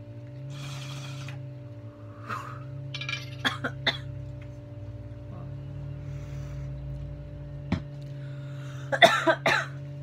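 A woman coughing after a bong hit, with a sharp burst of coughs near the end. Smaller coughs and a few light clicks come earlier, over a steady low hum.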